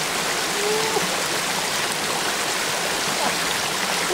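Shallow forest stream rushing and splashing over rocks, a steady even sound of running water.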